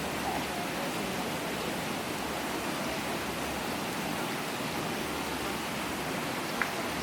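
Steady rushing of flowing river water, with one brief high click near the end.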